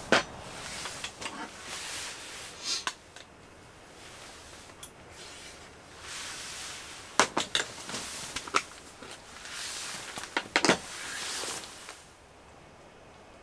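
An aluminium beer can set down on a metal camp table with a sharp knock, then scattered clicks and taps of chopsticks and cookware, with soft rustling in between.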